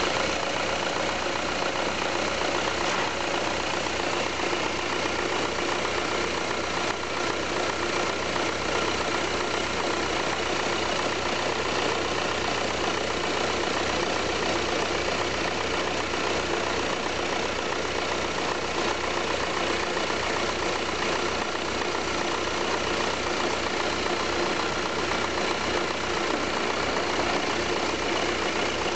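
Skoda Superb 1.9 TDI four-cylinder turbodiesel (engine code BSV) idling steadily.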